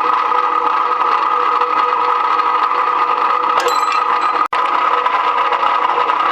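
Electric rebar cutting machine running steadily, its motor and gear train giving a constant hum and whine. There is a short clank about three and a half seconds in and a split-second break in the sound just after.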